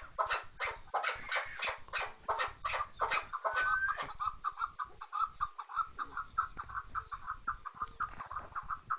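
Chukar partridge calling: a fast run of repeated clucking notes, about four or five a second, fuller and louder in the first half, then lighter and evenly spaced at a steady pitch.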